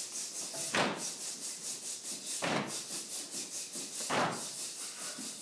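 A roomful of students clapping together on beat one, three times about 1.7 seconds apart, with a fast, even patter of softer hand sounds kept going between the claps.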